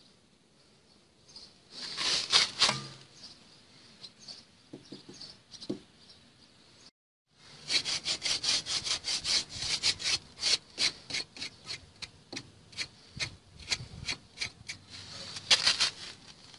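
A knife blade scraping in quick repeated strokes, about three or four a second, after a shorter burst of scraping about two seconds in; the sound drops out briefly about seven seconds in.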